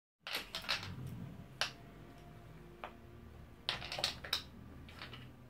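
Irregular light clicks and clatters of a ferret playing with a small plastic bottle cap on a wooden parquet floor, as the cap and the ferret's claws knock on the wood. There is a quick flurry near the start, single clicks after it, and another flurry a little past the middle.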